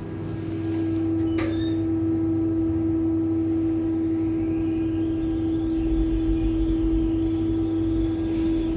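Express traction lift car travelling up its shaft: a steady hum with a rushing hiss and low rumble that build as it runs, and a single click about a second and a half in.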